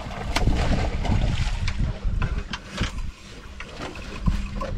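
Wind buffeting the microphone on a small fishing boat at sea, with scattered knocks and a faint steady hum underneath.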